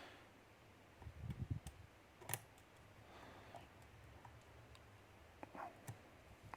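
Faint, scattered clicks and light handling noise from a flat flag dimple pick and tension tool working the pins of a dimple lock held in a false set, with one sharper click a little past two seconds in.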